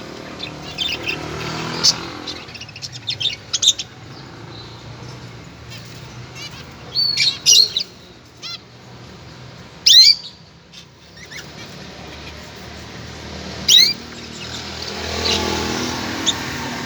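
Small birds chirping: short, sharp calls that come in scattered bunches, the loudest about ten and fourteen seconds in.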